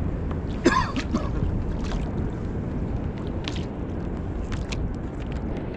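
Steady low water and wind noise around a kayak at sea, with one brief sharp sound less than a second in and a few faint ticks after it.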